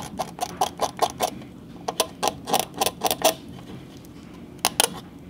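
X-Acto hobby knife blade scraping along the panel lines of a bare die-cast metal toy car body, cutting out old paint and deepening the lines. It makes quick short scratching strokes, about four a second, with a brief pause, then a longer pause and two more strokes near the end.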